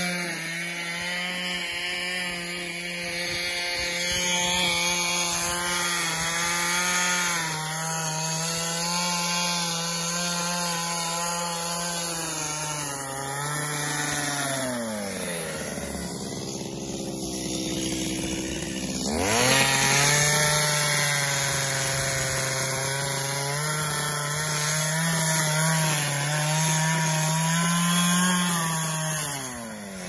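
Two-stroke chainsaw running at high revs and cutting into a log, its pitch wavering under load as the cut is worked. About halfway through it drops to idle for a few seconds, then revs sharply back up into the cut, and the pitch falls away near the end.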